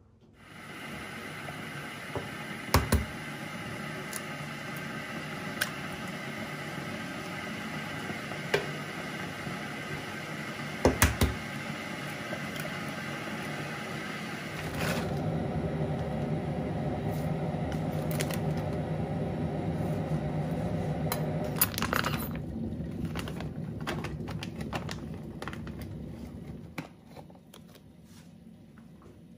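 A steady machine hum with a few held tones, growing fuller about halfway through and dying away near the end, with a few sharp clinks and knocks of kitchenware on top.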